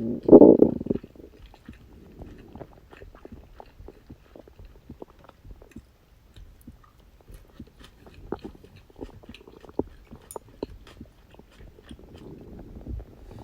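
Close-up human stomach growling and gurgling. A loud low growl fills the first second, then many faint pops and clicks of digestion follow, with a soft rumble again near the end.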